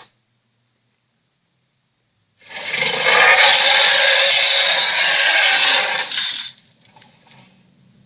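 A loud, hissing, rushing sound effect that starts suddenly after about two seconds of silence, holds steady for about four seconds, then cuts off.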